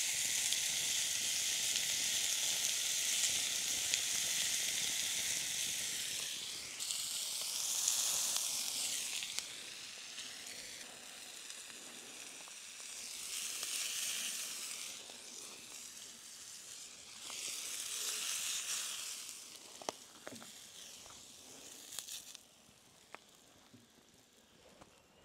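Beef steak sizzling in a hot pan: loud and steady at first, then swelling and easing off several times, dying down near the end with a few sharp ticks.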